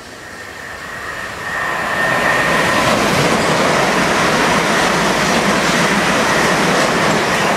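Class 377 Electrostar electric multiple unit, two units coupled, running through the station at speed without stopping. The sound builds over the first two seconds with a high ringing tone from the rails, then holds as a loud, steady rush of wheels on rails as the carriages pass.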